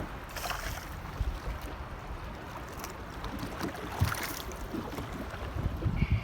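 Wind buffeting the microphone out on open water, a low rumbling noise with a couple of brief crackles; the gusts grow stronger near the end.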